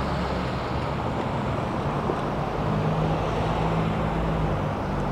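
Street traffic: a steady hum of cars at a downtown intersection, with a low engine drone from a nearby vehicle coming in about halfway through.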